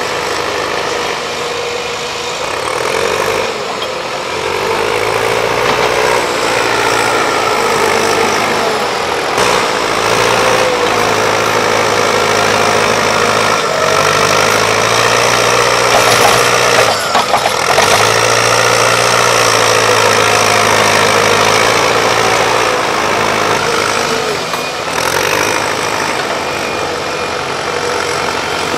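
Diesel engines of Volvo excavators at work, the engine note rising and falling again and again as the machines are worked, with a brief clatter of knocks about two-thirds of the way through.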